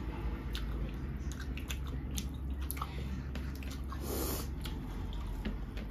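Close-up eating sounds: wet chewing and lip-smacking, heard as many short sharp clicks, with one short noisy burst about four seconds in, over a steady low hum.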